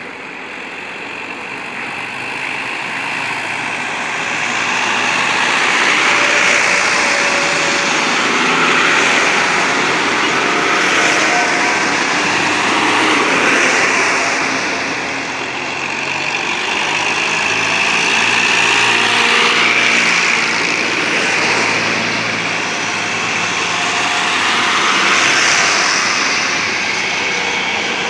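Tractor diesel engines running as several farm tractors drive slowly past in a line. A steady rushing noise rises over the first few seconds, then swells and fades every few seconds.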